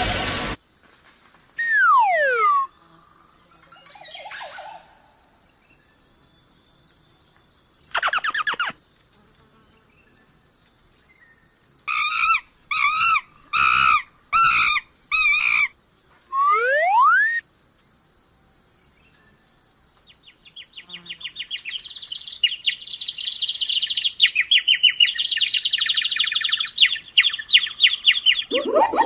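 Cartoon-style sound effects: a falling whistle-like glide, a short burst, a run of five quick chirps and a rising glide, each separate. Near the end comes a long, fast chattering trill that grows louder.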